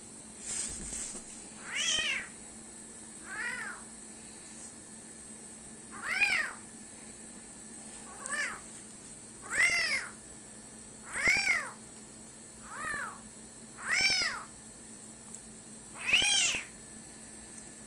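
A small kitten meowing over and over: about ten high, thin cries that each rise and fall, a second or two apart.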